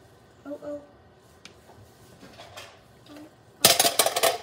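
A plastic grocery bag full of popcorn crinkles and rustles in a quick run of sharp crackles lasting under a second, near the end.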